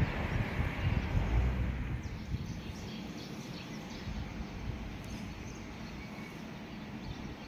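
Outdoor ambience: a steady low rumble with wind buffeting the microphone in the first second or two, and faint scattered bird chirps.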